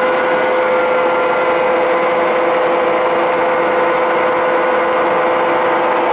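Clausing Boravia SUS63 engine lathe running under power, its spindle and large chuck turning at a steady speed, giving a steady whine over a mechanical hum.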